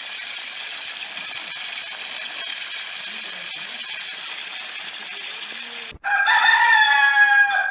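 A steady hiss for about six seconds, then after a sudden cut a rooster crowing: one long call that falls slightly in pitch.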